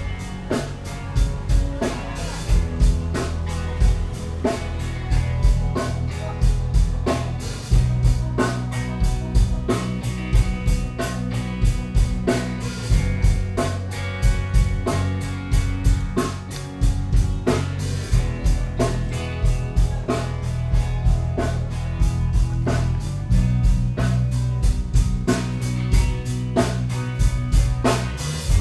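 Band music: a drum kit keeping a steady beat over a bass line, with guitar.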